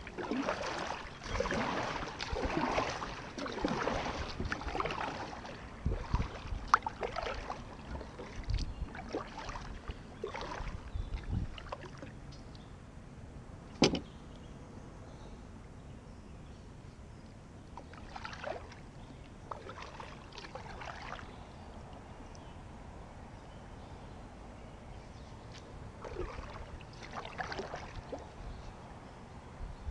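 Kayak paddle strokes: the blades dipping and splashing in the water in a steady run of strokes over the first several seconds, then scattered drips and light knocks. One sharp knock comes about halfway through, and a few more splashy strokes follow later.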